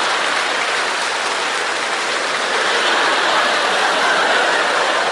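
Studio audience applauding, a steady clatter of many hands clapping.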